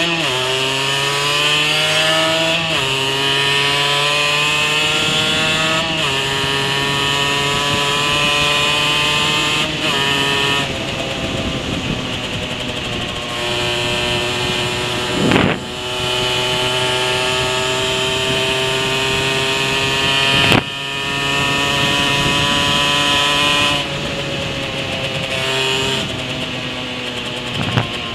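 Rieju SMX 50cc two-stroke moped engine under hard acceleration through the gears on the stock exhaust, heard from on the bike. The pitch climbs in each gear and drops at upshifts about 3, 6 and 10 seconds in. Later the revs dip sharply twice, briefly each time.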